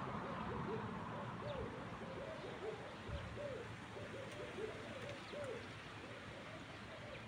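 A dove cooing faintly in a long run of short, arched coos, with a few faint chirps from other small birds.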